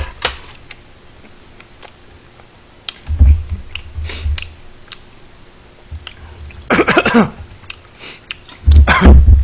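A man coughing a few times while eating spicy kimchi stew; the strongest coughs come about seven and nine seconds in. Low thuds of bumps against the table are mixed in.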